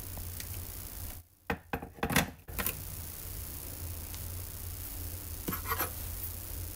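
A few light knocks and clicks of handling over a steady low hum: one cluster about a second in, the loudest knock near the middle of it, and a second, softer cluster of clicks near the end.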